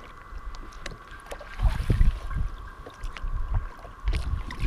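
Water sloshing at the side of a bass boat as a largemouth bass is released back into the lake. Wind buffets the microphone in low rumbles about two seconds in and again near the end.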